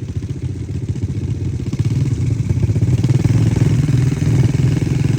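ATV engine running with a fast, steady pulsing, getting louder about two seconds in.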